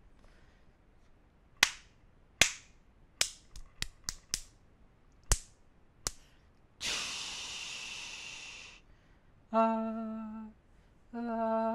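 Hand claps recorded for a snare sample: about nine sharp claps, some in quick succession. They are followed by a hiss lasting about two seconds, then two held hummed notes near the end.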